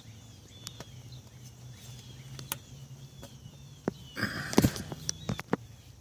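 Birds chirping repeatedly in the background over a low steady hum, with a few light clicks. About four seconds in comes a short louder burst of rustling and clicking knocks from parts and tools being handled.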